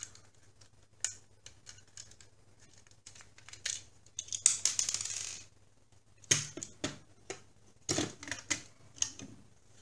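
Sharp plastic clicks, taps and scraping as the plastic shell of a bird-shaped smoke alarm is handled and pried apart by hand, with a longer scrape about halfway through and a run of clicks near the end.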